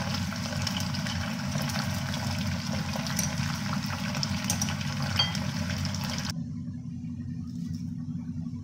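Pandan-leaf-wrapped chicken deep-frying in hot oil: a steady sizzle with crackles and pops, over a steady low hum. About six seconds in the sizzle cuts off suddenly, leaving only the hum.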